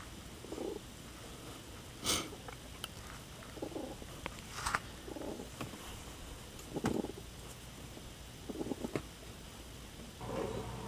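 Elderly cat purring softly in short low bursts every second or two, with a few sharp clicks.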